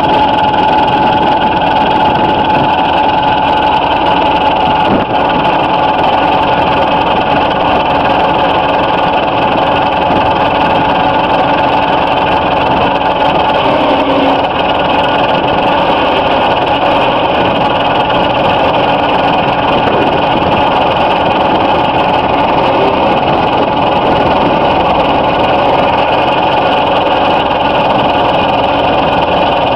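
Truck-mounted manure spreader running steadily, its engine and drive turning the twin spinner discs of a spinner attachment, with a steady whine over the engine noise.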